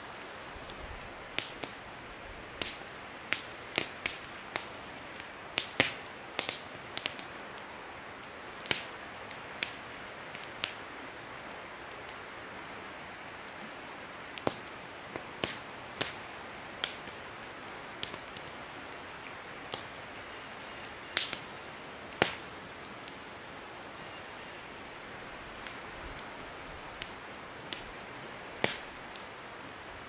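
Wood campfire in a stone fire ring crackling: irregular sharp pops and snaps, thickest in the first third and sparser after, over a steady rushing background.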